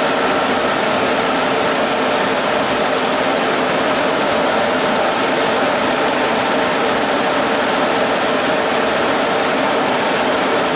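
Sun E10000 server cabinet's cooling fans running: a loud, steady whirring rush with a faint hum in it, unchanging throughout.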